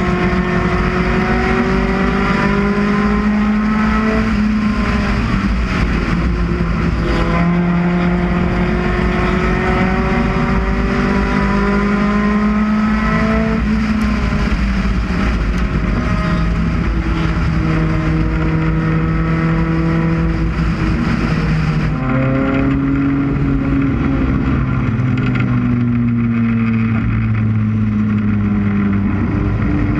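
UCAR race car's engine running hard at racing speed, its pitch climbing steadily and then dropping back several times as the throttle is lifted and reapplied through the laps.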